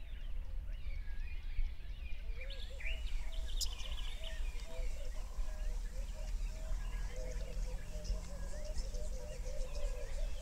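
Several birds chirping and calling, with a repeated warbling call lower in pitch joining about two and a half seconds in. A steady low rumble runs underneath.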